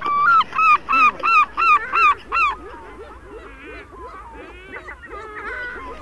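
A goose honks loudly about eight times in quick succession over the first two and a half seconds. Softer calls from many waterbirds then overlap one another.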